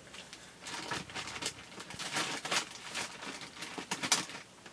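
Paper and scrapbooking materials being handled on a work surface: scattered rustles and light taps at an uneven pace.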